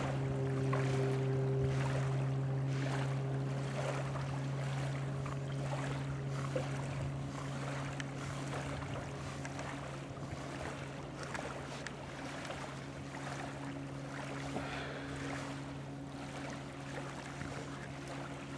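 A steady low engine drone that slowly fades, over the wash of lapping water.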